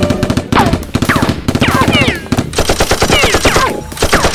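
Dubbed automatic-gunfire sound effect: rapid machine-gun bursts laid over the Nerf blasters, broken by two short pauses, with falling whistling tones among the shots.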